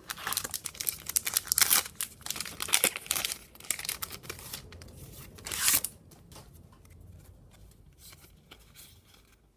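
Foil trading-card booster pack being torn open and crinkled: a run of loud rips and rustles for about six seconds, loudest near the end of that run, then fainter rustles and clicks of handling.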